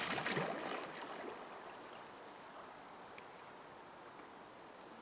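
Spray thrown up by an underwater firecracker blast falling back onto a pond, splashing down and fading out within about the first second and a half, then faint outdoor quiet.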